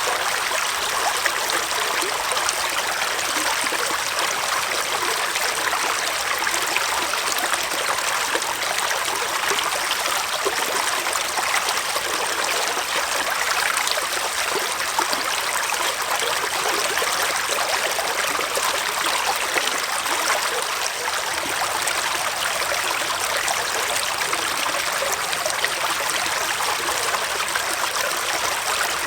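Small forest stream flowing and trickling over stones, a steady rushing babble of water.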